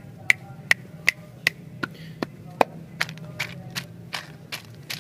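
Fingers tapping on plastic candy wrappers and containers: sharp, evenly spaced clicks, about two and a half a second, for the first three seconds, then softer, quicker taps.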